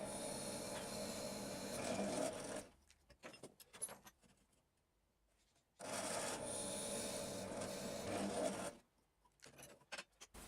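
A tool cutting into an oak knife handle, a steady rasping noise in two stretches of about three seconds each, with a near-silent gap and a few small clicks between.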